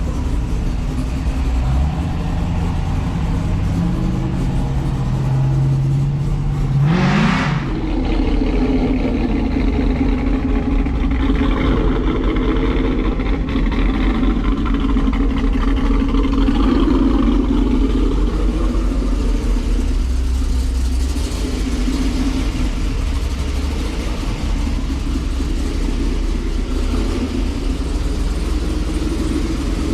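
Car engine running steadily, with one quick rev that rises and falls about seven seconds in.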